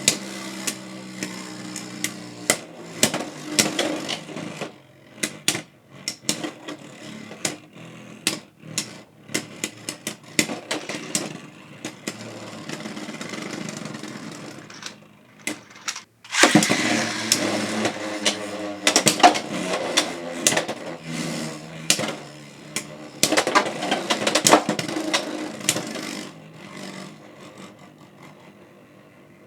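Beyblade X spinning tops battling, one of them Draciel Shield 7-60D: a whirring spin hum broken by many sharp clacks of the tops colliding. It runs over several rounds with brief pauses between them, and a new round starts abruptly about halfway through.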